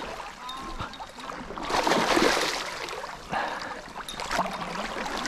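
Hooked king salmon thrashing at the surface of a shallow river, splashing in bursts, loudest about two seconds in, over flowing water.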